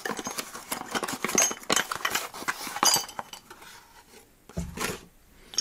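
Small metal router accessories, including a metal parallel fence with guide rods, clinking and rubbing as they are handled in a cardboard box, along with paper and cardboard rustling. The clatter is dense for about the first three seconds, then thins out, and a dull thud comes about five seconds in.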